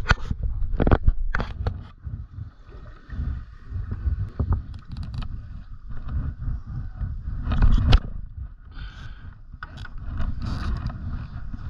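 Handling noise of a handheld camera: a low rumble with irregular knocks and scraping, loudest near the start and again about eight seconds in.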